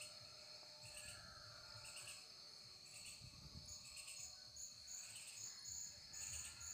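Faint insect chirping: a high, thin trill that is steady at first and then breaks into short pulses, over low background hum.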